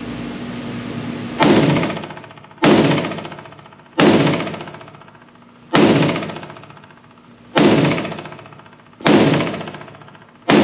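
Springfield Hellion 5.56 NATO bullpup rifle fired in slow semi-automatic fire: six shots about one and a half seconds apart, starting about a second and a half in, and a seventh right at the end. Each sharp report rings and dies away over about a second.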